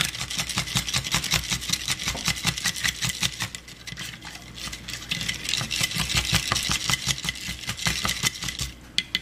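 Plastic debubbling stick worked rapidly in a glass canning jar of beans in liquid, tapping and clicking against the glass many times a second to free trapped air bubbles; it stops near the end with a couple of last taps.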